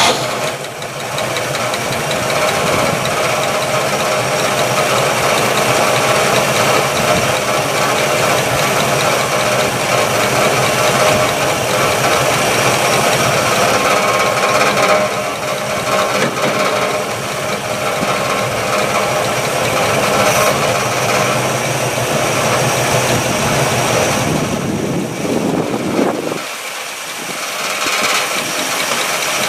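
1962 Chevrolet engine running steadily at idle just after being started, on fresh oil. Near the end its sound briefly thins and drops a little.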